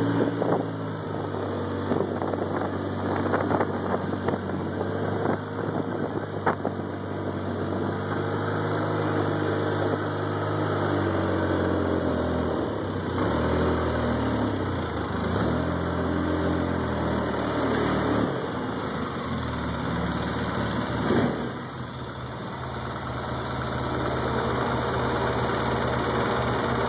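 Polaris ATV engine running under way, its note rising and falling as it rides and slows, then settling into a steady idle over the last few seconds. A single sharp thump about 21 seconds in.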